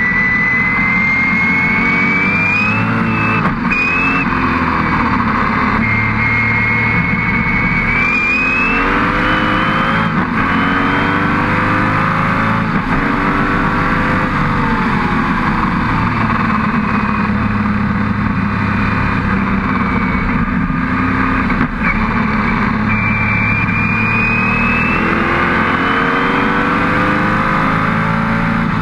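Lola T70 Spyder's V8 heard from on board at racing speed, its pitch climbing under acceleration and breaking off at each gearshift several times, with stretches of falling pitch as the driver lifts and slows, over constant wind and road rush.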